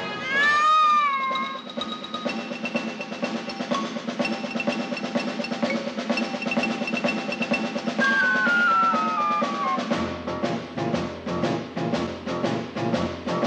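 Lively film-score music with drums. A wavering high tone opens it, a run of notes falls about eight seconds in, and quick drum strokes over a low bass take over near the end.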